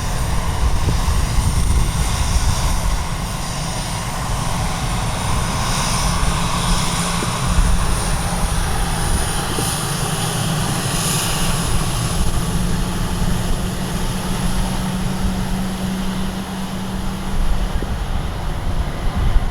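Airplane engines with a steady high whine, heard through heavy wind rumble on the microphone.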